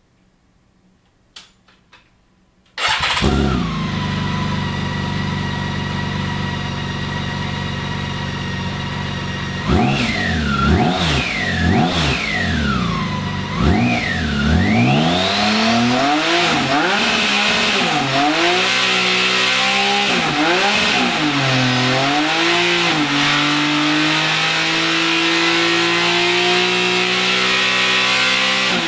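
BMW K1600GT's inline-six engine starting after a few faint clicks, about three seconds in, then idling steadily. From about ten seconds in it is revved in several quick blips that rise and fall, then settles into steady, slightly faster running.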